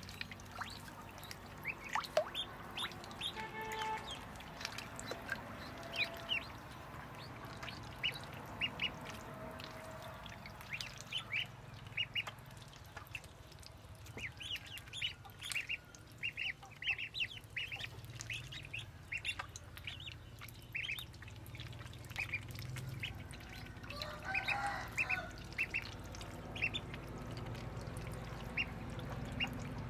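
Ducklings peeping: many short, high calls in quick clusters, with a lower, longer bird call about two-thirds of the way through.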